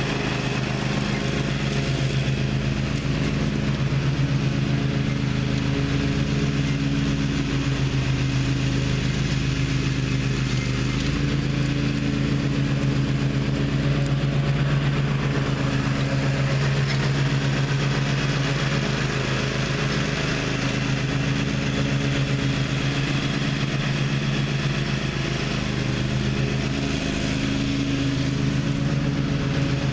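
Gravely ZTX 42 zero-turn mower's engine running steadily, its pitch shifting slightly now and then.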